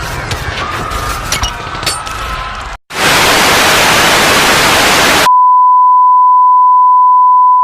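A busy mix of sound effects with sharp cracks cuts off about three seconds in. Then comes loud static hiss for about two seconds, followed by a steady single-pitched test tone: the dead-air signal of a broadcast that has gone off.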